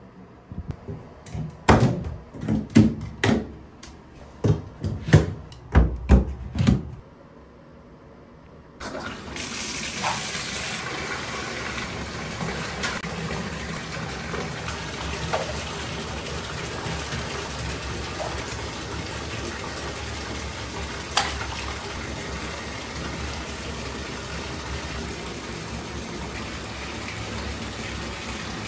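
Tap water running into a bathtub in a steady gush as the tub fills, with a few small plinks. Before it, a row of separate knocks and clicks of plastic being handled.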